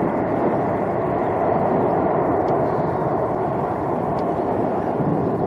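Heavy jet airliner's engines, a loud steady rush of jet noise as the plane passes close by.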